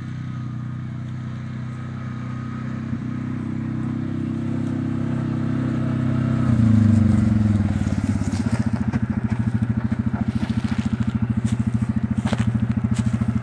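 Side-by-side UTV engine running as the vehicle drives up, growing steadily louder, with a brief rise about two-thirds of the way through. It then drops to a low, fast, even chugging as the UTV slows to a stop close by.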